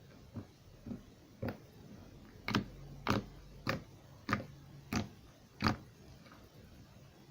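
Slime being squeezed and poked by hand for ASMR, giving a series of sharp clicking pops, about one every half second, louder through the middle.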